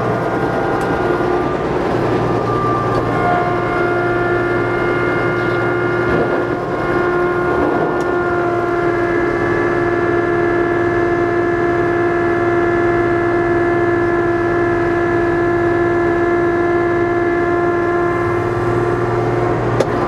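Kubota B2650 tractor's three-cylinder diesel running steadily at about 2400 RPM, driving the front-mounted snowblower through deep snow. A steady whine sits over the engine's rumble.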